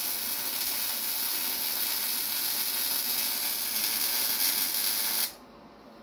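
Arc welding a seam around the steel axle tube of a shortened Ford 8.8 rear axle: a steady hiss from the welding arc that stops suddenly about five seconds in.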